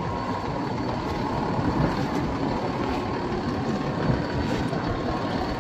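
Logan Track Pro straight belt conveyor running, driven by its 3 horsepower three-phase electric motor: a steady rumble and rattle of belt and rollers with a faint steady hum.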